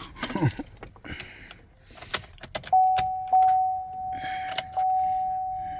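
Keys jangling with a few clicks, then, about halfway through, a GMC Sierra pickup's warning chime dings several times. Each ding is one steady tone fading out until the next, while the engine does not crank.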